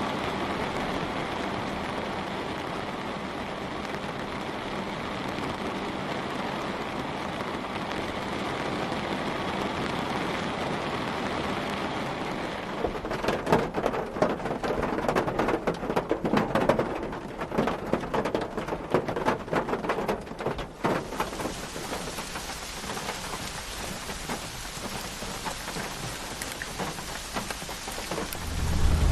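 Rain on a car heard from inside the cabin. A steady patter of rain runs first. Just before halfway, heavy separate drops begin hitting the roof and go on for about eight seconds, then it settles back to lighter, steady rain. A low hum starts right at the end.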